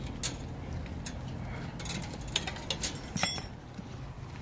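Light, scattered metallic clinks and rattles, with a louder clatter about three seconds in.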